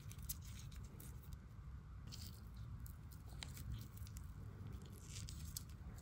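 Faint handling noise of a Victorinox Swiss Army knife in gloved hands: a few light, scattered clicks and soft rubbing as the knife is turned over.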